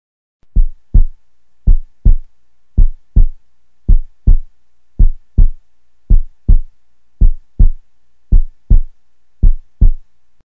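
Heartbeat sound effect: nine slow double beats, each a pair of short, deep thumps (lub-dub), about one a second.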